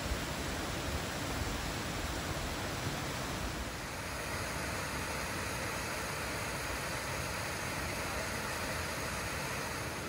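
Steady rushing of water pouring down a small waterfall and over a bedrock cascade on a mountain stream. The sound changes slightly about four seconds in.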